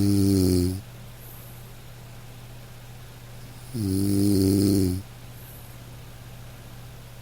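Nasal snoring: a pitched, droning snore about a second long on each breath, repeating about every four seconds. One snore ends just under a second in and another runs from about three and a half to five seconds in.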